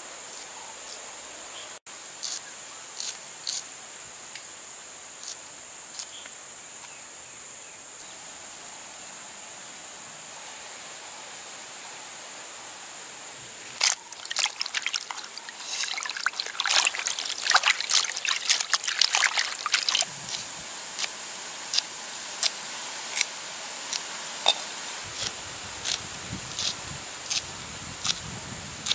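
A few sharp cutting clicks, then hands splashing and sloshing green chillies in a bowl of water for several seconds, followed by an even run of crisp clicks as the chillies are sliced on a curved blade. A steady high insect drone runs underneath.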